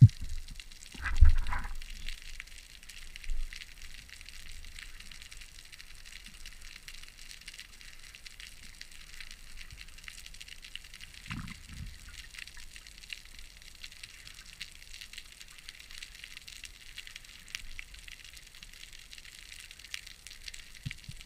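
Underwater ambience picked up by a GoPro in its waterproof housing: a steady faint crackling hiss of fine ticks with a low water rush. A louder muffled whoosh comes about a second in, and a shorter swell of water sound about eleven seconds in.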